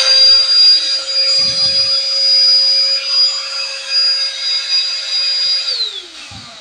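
Small handheld mini vacuum cleaner's motor running with a steady high whine, then winding down with a falling pitch near the end.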